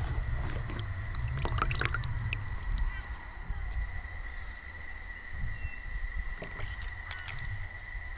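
Outdoor background sound: a low rumble and a steady high whine, with a few sharp clicks and knocks early on. Crows caw faintly near the end.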